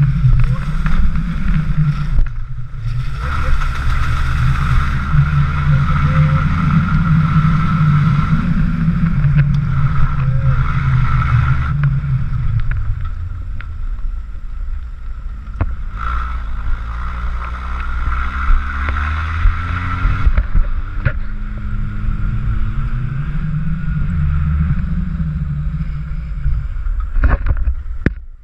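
1988 Nissan Terrano's engine running as the SUV drives off-road, its pitch rising and falling with the throttle. Wind buffets the microphone held out of the window, and a few sharp knocks come near the end.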